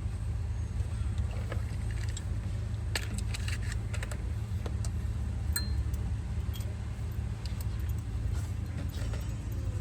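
Scattered light metallic clicks and clinks of hand tools working on the glow plugs of a diesel engine, most of them about three to four seconds in, over a steady low hum.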